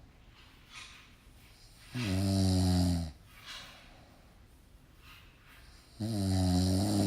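Snoring: two low, pitched snores on the breath in, about four seconds apart and each about a second long, with soft breaths out between them.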